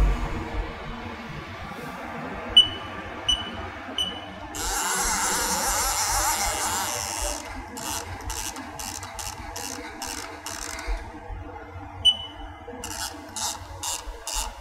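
Haas Mini Mill CNC control panel beeping three times at key presses, then a hiss lasting nearly three seconds as the automatic tool changer swaps to the next tool. After that comes a quick even clicking while the jog handwheel is turned, with one more beep about twelve seconds in.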